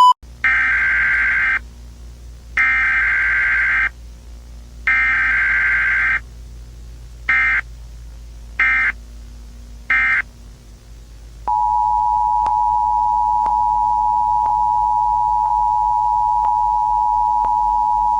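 Emergency Alert System data header: three long, screechy bursts of digital data, then three short ones. About 11.5 seconds in, the steady two-tone EAS attention signal starts, with faint ticks about once a second over it.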